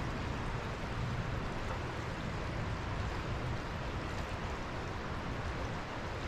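Steady rush of creek water running over riffles.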